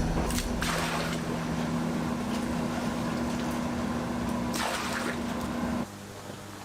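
Hot oil sizzling as food deep-fries, with a few brief scrapes or knocks of utensils. The sizzle drops to a quieter hiss near the end.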